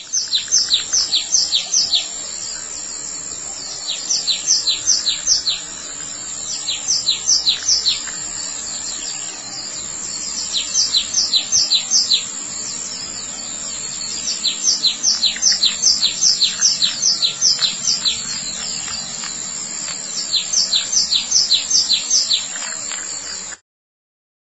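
A songbird singing repeated bouts of quick, high, falling chirps, about six bouts with short pauses between, over a steady high-pitched whine. It all cuts off abruptly near the end.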